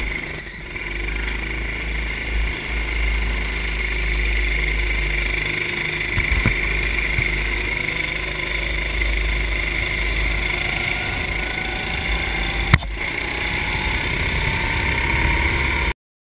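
Racing kart engine running at speed, picked up by an onboard camera, its pitch rising slowly toward the end. A single sharp knock about three-quarters of the way through, and the sound cuts off suddenly just before the end.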